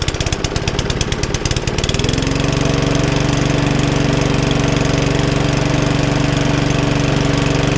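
Green Webb rotary lawnmower's petrol engine just started, running with distinct firing beats. About two seconds in it settles into a smooth, steady run at speed. It is running on a swapped-in spark plug, the cheap original plug having been what stopped it starting.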